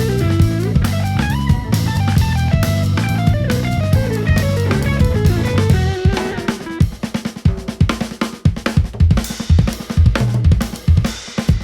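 Live jazz band: a fast melodic line runs over electric bass and drum kit, then about six seconds in the band drops out and the drum kit plays on alone, a drum break of snare, bass drum and cymbal strokes.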